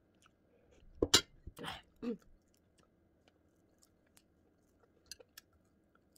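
A loud slurping sip from a small bowl about a second in, followed by a shorter second sip and a brief falling voiced "ah". After that, faint clicks and chewing as crispy fried fish is picked apart by hand and bitten.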